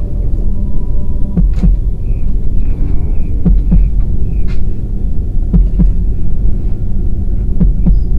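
Suspense soundtrack: a heavy, low droning rumble with a slow double thump, like a heartbeat, about every two seconds.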